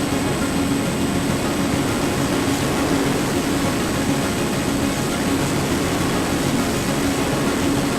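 The brushless electric motor and propeller of a small RC foam plane, a Hobbywing XRotor 2205 2300kv, running at steady throttle. It makes an even hum over a constant rushing noise of air.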